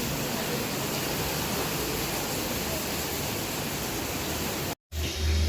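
Steady rain falling, an even hiss with no rhythm.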